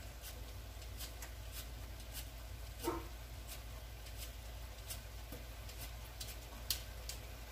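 Potatoes being peeled by hand: light, quick scraping strokes, about two a second and irregular, over a low steady hum. A brief vocal sound comes about three seconds in.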